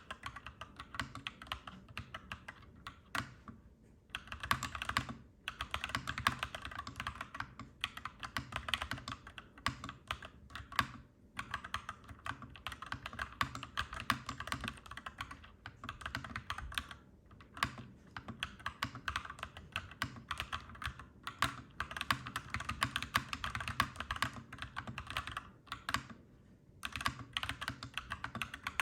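Clacky mechanical keyboard being typed on in fast, continuous runs of keystrokes, broken by a few brief pauses.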